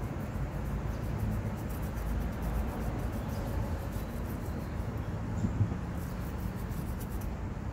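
Steady low rumble of outdoor background noise, with faint handling clicks and one short knock about five and a half seconds in.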